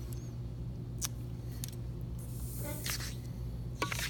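Steady low room hum, with a few faint clicks and a brief scratchy rustle about two and a half seconds in.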